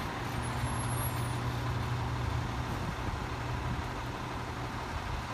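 A Sterling LT7500 rear-loader garbage truck's diesel engine running steadily, a continuous low hum.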